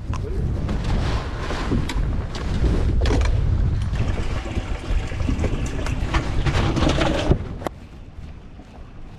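Wind buffeting and handling rustle on a body-worn camera's microphone, with scattered clicks and knocks as a bass is put into the boat's livewell. The rumble cuts off sharply about seven seconds in, leaving lighter wind.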